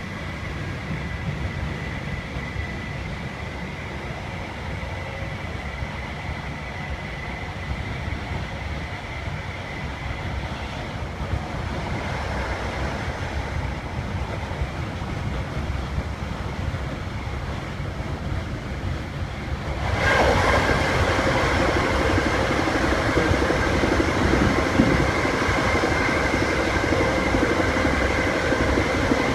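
Train running with a steady low rumble and rail noise. About two-thirds of the way through it suddenly grows louder and brighter, with steady whining tones over the rumble.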